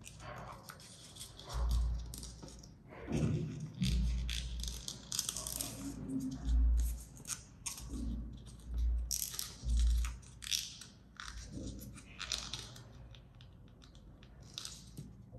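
A paper dollar bill being folded by hand: repeated crinkling and rustling of the banknote as creases are pinched and pressed down with the fingertips. Several dull thumps come in between.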